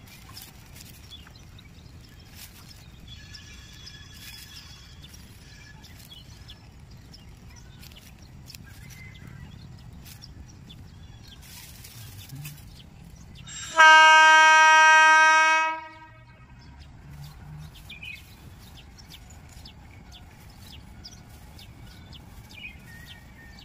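WAG-12 electric locomotive's horn sounding one loud, steady blast of about two seconds, a little past the middle, over a low steady rumble.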